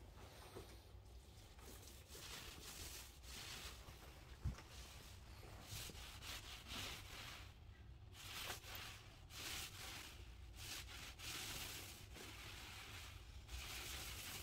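An oversized paint roller being rolled over a painted wall, a faint swishing hiss with each stroke, stroke after stroke.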